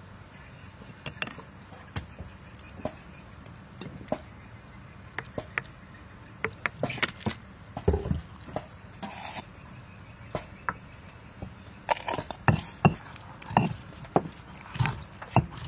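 Stone mortar and pestle at work on a chili paste: scattered taps and clicks of a spoon and ingredients against the stone, then dull, repeated thuds of the stone pestle pounding in the mortar in the last few seconds.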